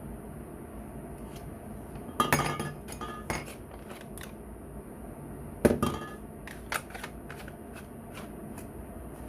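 Hard objects being handled and set down: a cluster of knocks and clinks about two seconds in, another cluster about halfway, and a few lighter clicks in between and afterwards, over a steady hiss.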